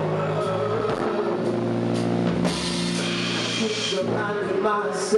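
A live rock/soul band playing: drum kit, electric bass, guitar and keyboard, with steady sustained bass and keyboard notes and a cymbal crash about two and a half seconds in.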